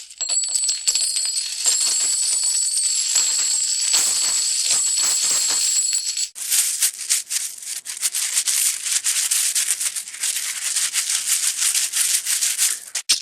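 Cartoon coin sound effects: coins clinking and jingling with a bright metallic ringing for about six seconds, then a denser, drier rattle of coins.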